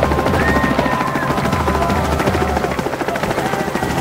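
Helicopter running with the fast, steady chop of its rotor blades.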